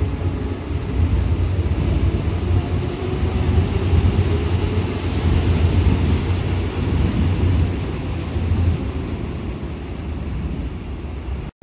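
A Seoul Line 3 GEC electric train running past the platform on its way out, a steady low rumble of wheels and motors that fades over the last few seconds.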